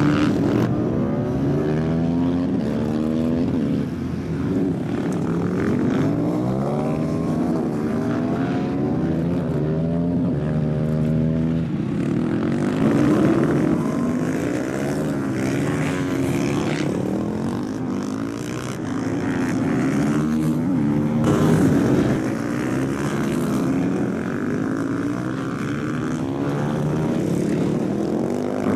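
Supermoto motorcycle engines revving hard and easing off as the bikes accelerate, shift and brake through the course, the pitch climbing and dropping again over and over.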